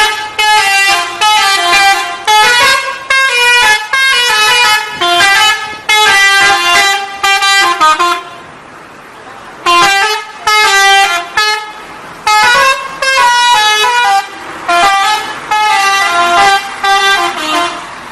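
Telolet bus horn, a multi-tone musical horn, playing a quick melody of short notes that step up and down. It plays in two long runs with a pause of about two seconds in the middle.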